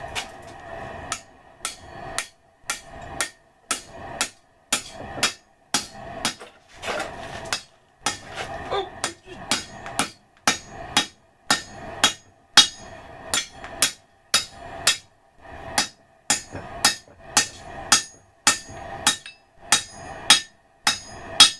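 Hand hammer forging hot steel on an anvil: a long run of steady blows, about two a second, each a sharp metallic strike.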